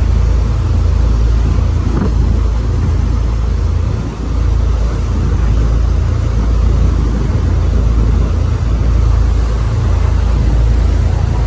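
Steady low rumble of a boat under way on a lake, with engine drone and rushing air on the microphone blended together.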